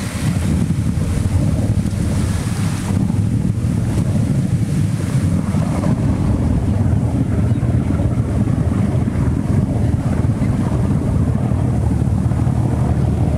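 Churning, rushing water of a large artificial whirlpool: a circular pool of dark water spinning into a deep central vortex, a steady low rumble with a hiss of foaming water on top.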